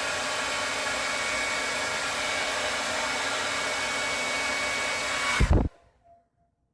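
Handheld hair dryer blowing steadily, then switched off about five and a half seconds in with a brief loud thump, leaving near silence.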